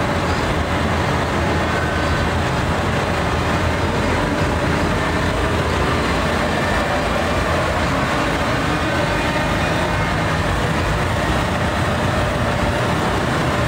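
Farm tractor diesel engines running steadily at idle close by, an even, unbroken engine noise.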